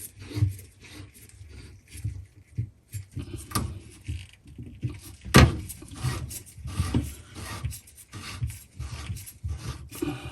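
Hands working under a bathroom sink, turning the shut-off valve handles closed: irregular rubbing, scraping and light knocks, with one sharp knock about five seconds in.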